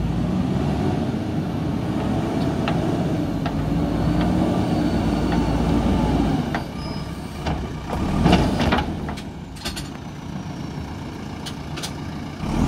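JCB backhoe loader's diesel engine running under load as the backhoe arm works, its pitch rising and falling a little. About eight seconds in there is a louder noisy swell, followed by a few sharp knocks.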